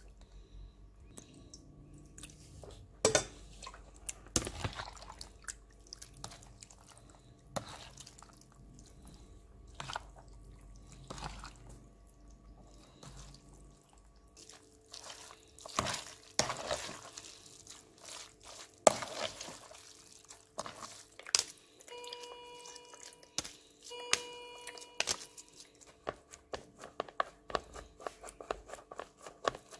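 Wet fresh cheese curds squelching and dripping as a gloved hand squeezes and works them in a plastic colander, pressing out the whey; irregular wet squishes and clicks. Two short electronic beeps sound a little past two-thirds of the way through.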